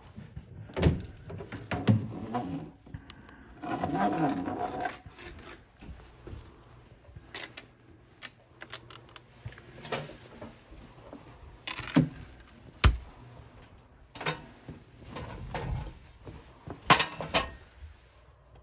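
Handling noise: scattered knocks, clicks and rustling as a gloved hand moves the camera and touches nearby surfaces, with a longer stretch of rustling about four seconds in.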